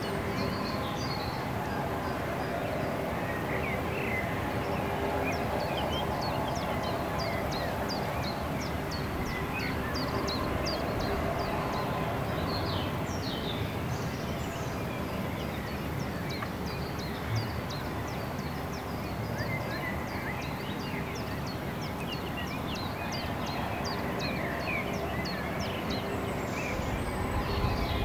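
Songbirds singing outdoors: one bird repeats short, thin, high notes at a steady two to three a second, with other chirps scattered among them, over a steady background rush.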